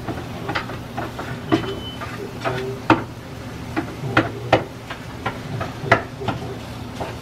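Spatula chopping and breaking up raw sausage in a frying pan, knocking against the pan in irregular sharp strikes about once a second, with the meat sizzling underneath.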